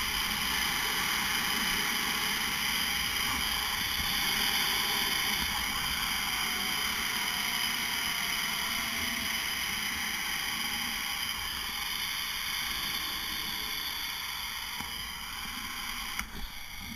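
Zip line trolley pulleys rolling along the steel cable, a steady whirring hiss with wind on the microphone. It slowly gets quieter as the ride goes on and drops off abruptly about a second before the end, at the landing platform.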